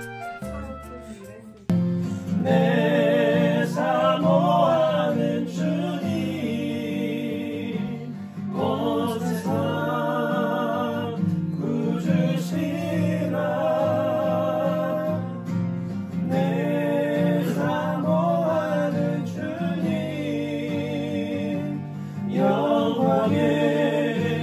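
Voices singing a Christian worship song to acoustic guitar; the singing comes in suddenly about two seconds in, after a brief stretch of soft instrumental music.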